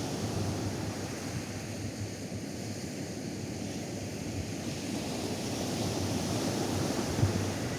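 Atlantic surf washing onto a sandy beach: a steady rushing of breaking waves that swells a little toward the end, with some wind buffeting the microphone.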